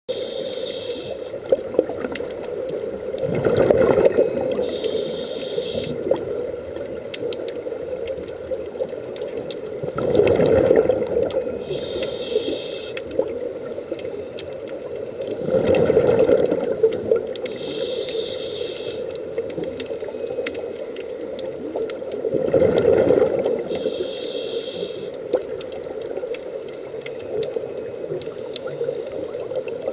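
A scuba diver's breathing heard underwater: a rush of exhaled bubbles about every six and a half seconds, alternating with a short hiss from the regulator, over a steady underwater wash.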